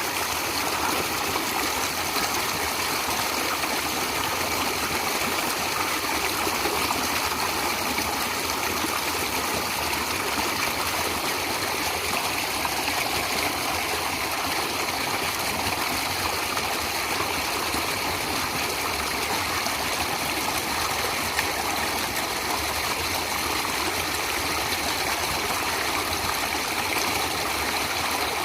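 Stream water flowing and burbling steadily over rocks.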